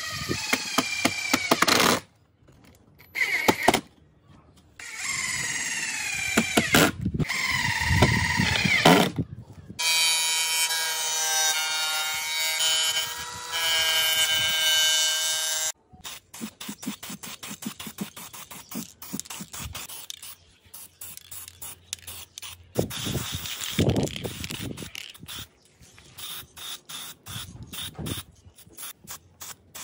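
Cordless driver whirring in short runs, its whine rising in pitch, as screws are driven into wood. Then an angle grinder runs at a steady whine for about six seconds and stops suddenly. After that come many short, irregular bursts of a spray can hissing.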